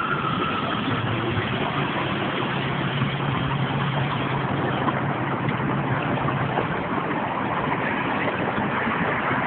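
City street traffic noise: a steady wash of passing cars, with a vehicle engine's low steady hum through the first two-thirds.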